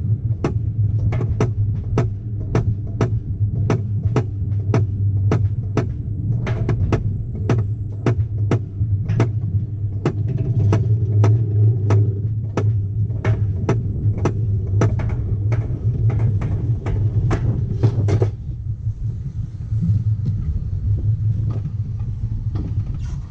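Alpine coaster sled running down its rails: a steady low rumble from the wheels, with sharp clicks about two to three times a second as it rolls over the track joints. The clicking stops about 18 seconds in, leaving a smoother rumble.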